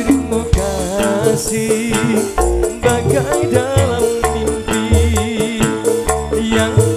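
Live campursari koplo band music: a man singing over electric keyboards and drums, with a fast rattling percussion beat and pulsing bass.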